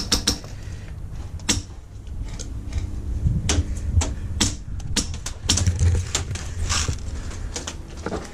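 Airsoft gun shots: sharp, irregularly spaced cracks, with a quick run of three at the start, over a low rumble of handling noise.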